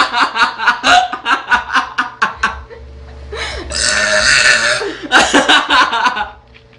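A girl belching loudly after drinking cola: a long, rattling burp made of rapid pulses that lasts about two and a half seconds, then more rasping burps after a short pause.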